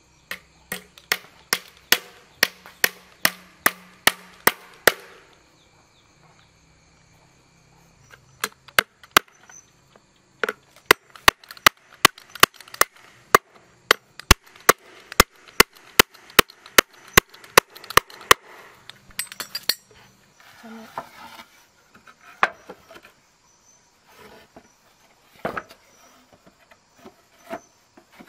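Hammer striking a wooden door frame: runs of sharp, regular blows about two a second, broken by a pause of a few seconds. Near the end they give way to scattered lighter knocks of wooden boards being handled.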